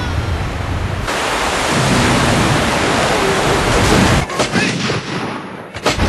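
Roar of Niagara Falls, a low rumble that swells suddenly about a second in to a loud rushing hiss, then falls away over the last two seconds.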